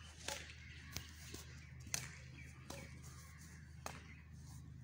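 Badminton rackets striking a shuttlecock in a rally: a handful of sharp, faint taps about a second apart, the loudest about two seconds in.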